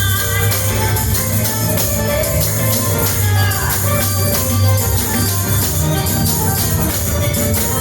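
Gospel worship band playing a hymn, with tambourine strokes over a strong, steady bass.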